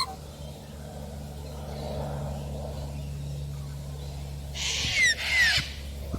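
Two short, harsh bird calls about five seconds in, each with a falling whistle inside, over a steady low hum that stops just before them.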